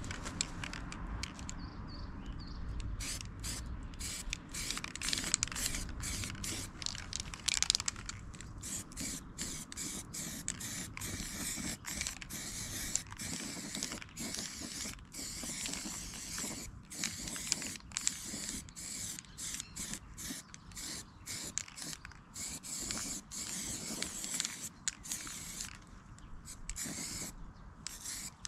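Spray hissing on and off in many short, irregular bursts.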